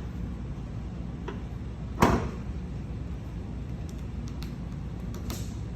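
A single sharp knock about two seconds in, ringing on briefly, over a steady low hum, with a few faint clicks later on.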